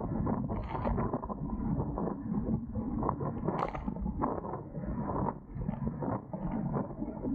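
Wind buffeting the microphone and water rushing and slapping against the hulls of a Dart 18 catamaran under sail: a dense, steady rumble broken by many short splashy hits.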